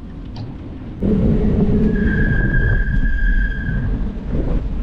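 Highway traffic passing close by, a loud low rumble that comes in suddenly about a second in, with a steady high-pitched tone held for about two seconds in the middle.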